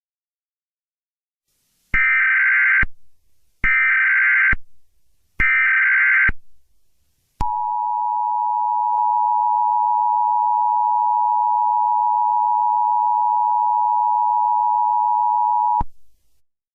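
Emergency Alert System broadcast tones: three short bursts of digital header data, each about a second long, then the steady two-tone attention signal held for about eight seconds before cutting off.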